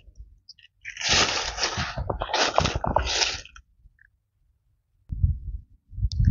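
Footsteps crunching and rustling through dry leaf litter and twigs, in a run of steps that stops a little past halfway, with a low muffled rumble near the end.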